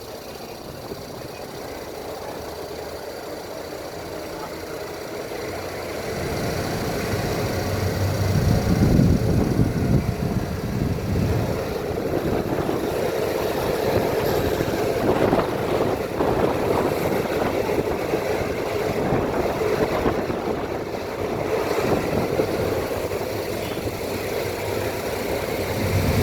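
Diesel train approaching on the line, its engine and running noise growing louder over the first several seconds, then staying loud close by.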